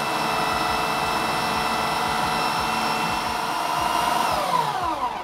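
Food processor running at speed, blending frozen banana and peanut butter, with a steady motor whine. About four seconds in it is switched off and the motor winds down, its pitch falling until it stops near the end.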